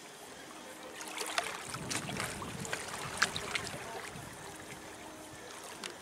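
Black Sea water splashing and lapping in the shallows at the shore, with a run of sharp splashes between about one and four seconds in.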